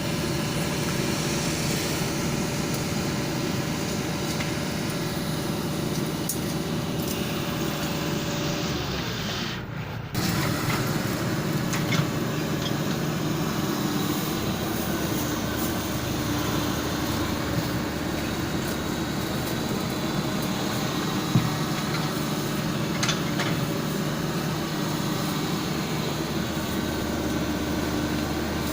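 Kobelco mini excavator's diesel engine running steadily at work, with a few sharp knocks. The sound dips briefly about a third of the way through, then carries on.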